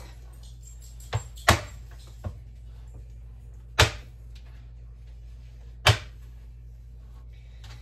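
Knife chopping bars of baker's chocolate on a cutting board: five sharp knocks, the three loudest about two seconds apart.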